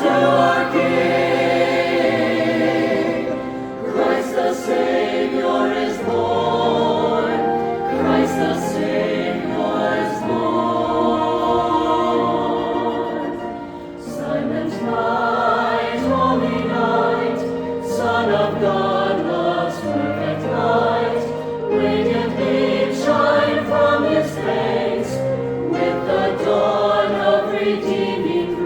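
A choir singing a piece in several parts, holding sustained chords that change every second or so, with a brief softening about halfway through.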